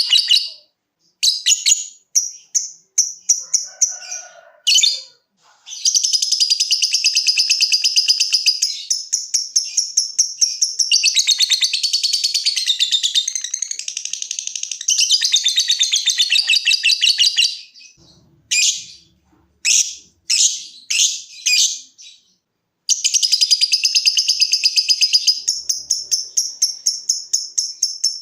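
Lovebird singing: long runs of rapid, high-pitched chattering trill (the prized 'ngekek'), with short choppy bursts of chips ('ngetik') in between. The short bursts come near the start and again in the middle; the long trills run through much of the middle and the end.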